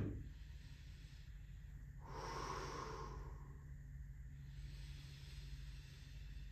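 A person breathing during a stretch: one slow, audible breath about two seconds in, lasting about a second, over a faint steady low hum.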